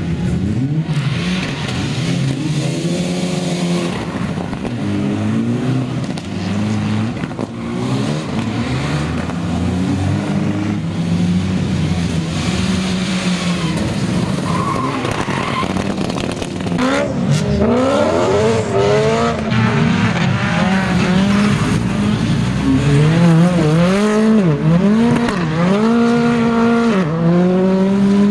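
Rally car engines driven hard, their pitch sweeping up and down again and again through revs, gear changes and lifts: mostly a Mitsubishi Lancer Evolution X, with a Hyundai i20 R5 near the end. Brief tyre squeal is mixed in.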